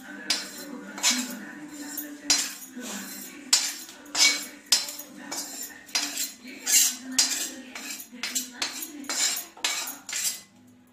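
A spatula scraping roasted sesame seeds out of a kadhai (wok) onto a plate: a run of irregular scrapes and clinks against the pan, one or two a second.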